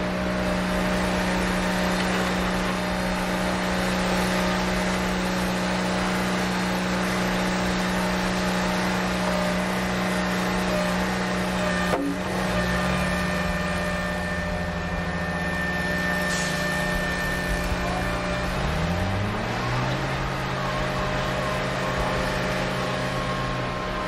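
Vehicle engine running steadily with a low hum and a sharp click about halfway through. After the click the engine's pitch shifts, and it slides upward near the end as if revving.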